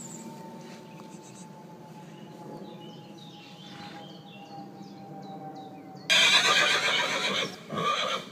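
A horse whinnying: one loud call about six seconds in, lasting over a second, then a shorter second burst. Before it there is only faint background with a few high chirps.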